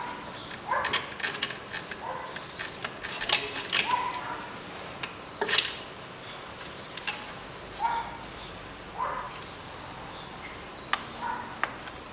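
Hand work in a car's engine bay: irregular clicks and knocks of plastic connectors, hoses and brackets being handled and pulled free, with several short squeaks.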